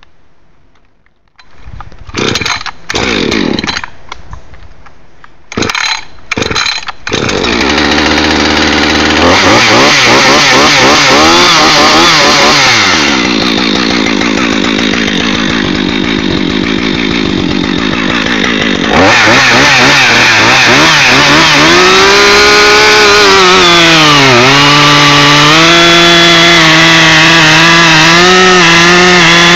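Husqvarna 562 XP AutoTune chainsaw with a 24-inch bar. It fires in a few short bursts, then catches about seven seconds in and runs. It is revved up, eased back, then held at full throttle. Near the end its pitch sags and recovers several times, as the engine loads down in a cut.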